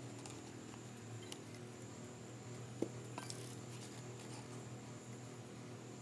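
Faint light clicks and taps of small plywood pieces and wooden strips being handled and fitted together, with one sharper click near the middle, over a steady low hum.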